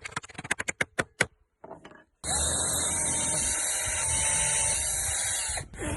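A rapid run of sharp clicks in the first second or so, then an electric drill spins up about two seconds in, runs steadily for about three and a half seconds and winds down near the end.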